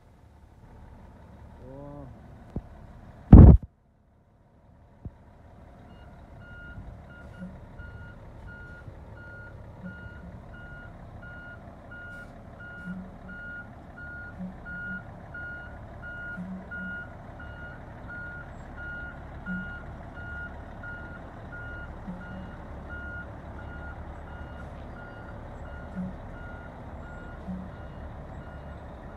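Oshkosh M983A4 HEMTT LET truck tractor's diesel engine running as it manoeuvres, with its reversing alarm beeping steadily, starting about six seconds in. A single loud sharp bang comes about three and a half seconds in.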